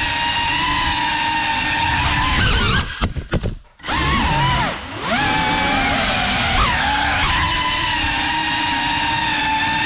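Brushless motors and propellers of a Geprc Cinelog 35 FPV cinewhoop drone whining steadily in flight. About three seconds in the whine stutters and cuts out for a moment, then spools back up with swooping pitch and settles to a steady whine again.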